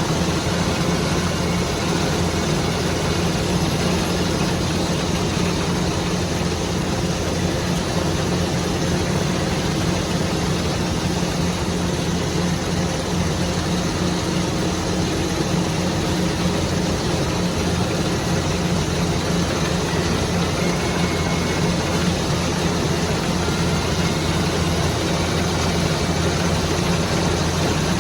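Rice harvesting machine's engine running steadily under load, a constant drone over the noise of its working machinery.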